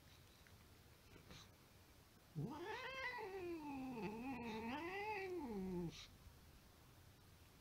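Sphynx cat giving one long, wavering yowl that rises and falls in pitch for about three and a half seconds, a sound of complaint while a dog licks the wax from its ears. A few faint clicks come before it.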